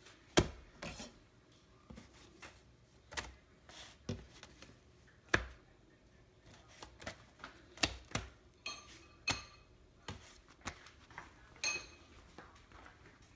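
Scattered light clicks and knocks, about a dozen at irregular intervals, from kitchen handling while corn tortillas are lifted, turned and stacked by hand on an electric griddle.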